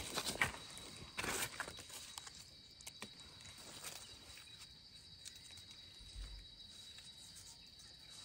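Rustling and crackling of dry leaf litter underfoot and under hand, strongest in the first second or two, then a few small clicks. A steady high insect drone runs underneath.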